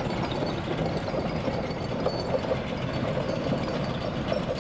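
Fowler B5 compound steam road locomotive on the move, hauling a wagon: a steady running noise from the engine and its wheels on the road.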